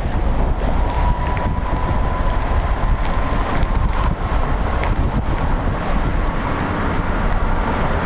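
Strong wind blowing across the microphone: a steady, loud rush with a heavy low rumble.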